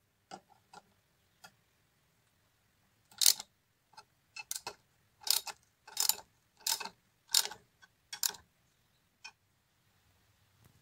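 Socket ratchet clicking in short bursts, about one every two-thirds of a second, as it tightens the nut on a connecting rod's big-end cap. A few faint metal clicks come first, as the nut is fitted by hand.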